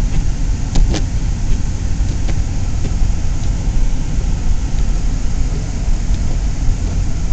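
Car driving, heard from inside the cabin: a steady low rumble of engine and road noise, with two short clicks about a second in.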